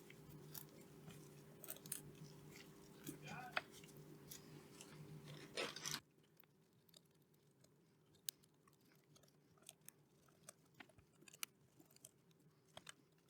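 Near silence, with sparse faint clicks and taps of small parts and tools being handled during reassembly of a relay/fuse board. A faint steady hum runs underneath and cuts out about six seconds in.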